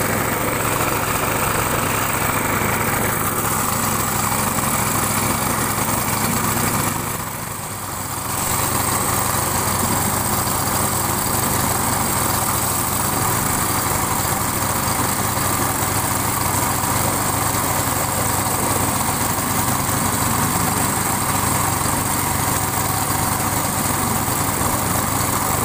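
Small petrol engine of a wooden river passenger boat running steadily, with water and wind hiss; its sound drops briefly about seven seconds in.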